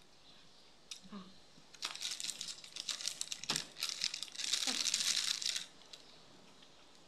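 Close-miked eating noises: crackling, wet chewing and lip sounds, then about a second of hissing air drawn through pursed lips near the end, against the heat of raw chili.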